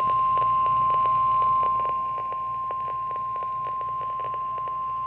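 NOAA Weather Radio 1050 Hz warning alarm tone, one steady high tone received over a weather radio with static hiss and crackling clicks under it. It signals that a warning message, here a severe thunderstorm warning, is about to be read.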